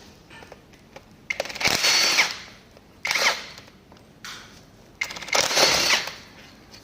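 Cordless power drill-driver spinning out the screws that hold the electric assist motor to a BMW steering rack, in three short runs with a high whine.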